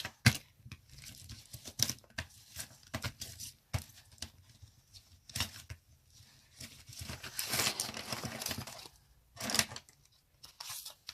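Packaging of a mechanical pencil set being handled and torn open: crinkling and tearing with scattered clicks, and a longer stretch of tearing about seven to nine seconds in.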